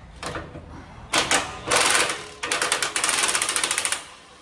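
A wrench clicking as it backs out a front differential mount bolt: a few separate clicks, then two runs of fast, even clicking.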